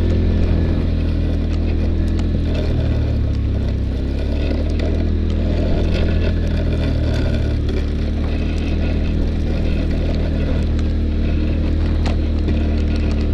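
Polaris Sportsman 850 ATV engine running steadily under load while plowing snow, its pitch shifting slightly a few times.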